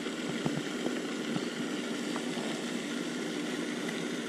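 Steady hum and spray of a pond's aerating fountain. A few faint clicks in the first couple of seconds come from a small crappie jig being worked out of a bass's lip.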